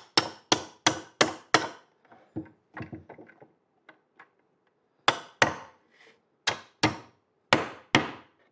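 Rubber mallet tapping 3D-printed plastic parts to press them into place: a quick run of sharp taps, about three a second, then a pause with a few softer handling knocks, then a second run of taps.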